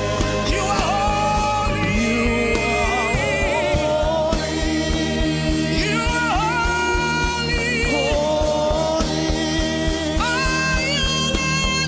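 Gospel worship music: a lead voice sings long, sliding notes with vibrato over sustained accompaniment and a steady beat.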